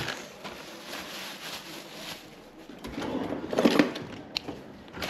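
A plastic freezer bag of breadcrumbs rustling and crinkling as it is handled. The rustle swells about three seconds in, and there is a short sharp click near the end.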